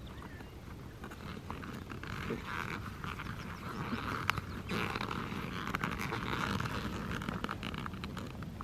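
Camping gear being packed into fabric bike-packing bags: rustling and scraping with many small clicks, the handling noise swelling from about two seconds in.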